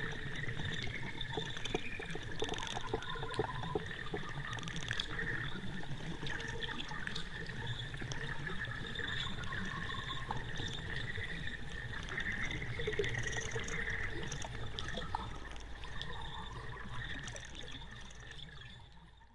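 Steady sound of running water, fading out over the last couple of seconds.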